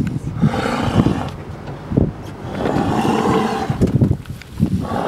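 Deep, rough roaring like a lion's, in three long drawn-out calls with short pauses between them.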